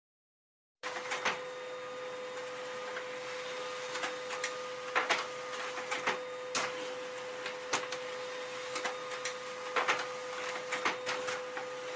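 A steady machine-like hum with many scattered clicks and taps over it, starting about a second in after silence.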